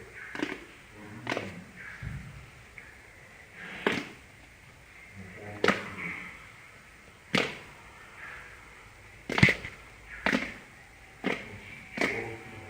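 Slime being squeezed and pressed, giving sharp, short popping clicks about every one to two seconds at an uneven pace.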